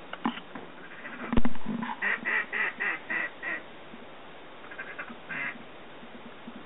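A sharp thump, then a quick run of about six duck quacks at about four a second. A shorter burst of quacking follows a couple of seconds later.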